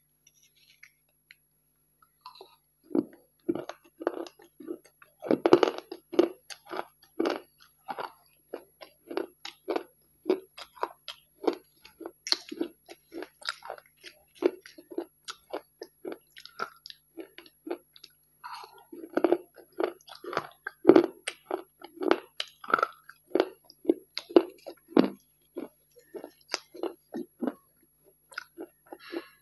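Chewing and crunching of broken slate-pencil pieces coated in a black paste, in crisp crunches about twice a second. The crunching starts about two seconds in.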